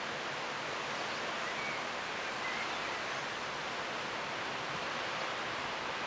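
Leaves of a tree rustling in the wind: a steady, even hiss.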